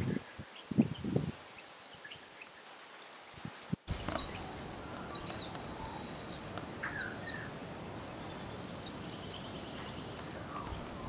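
Small birds chirping with short high calls and one falling call, over a steady outdoor background hiss. A few low soft pulses come in the first second or so, and the background cuts out briefly and comes back louder about four seconds in.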